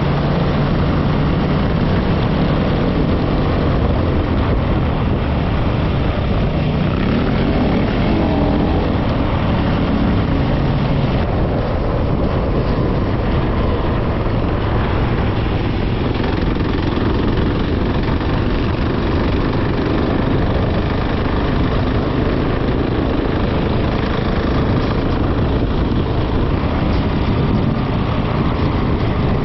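A vehicle engine running while driving, under steady road and wind noise. The engine note rises and falls about a quarter of the way in.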